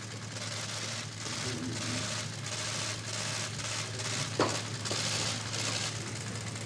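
Press cameras' shutters firing in rapid, overlapping bursts of clicks, over a steady low hum, with one brief sharper sound about four and a half seconds in.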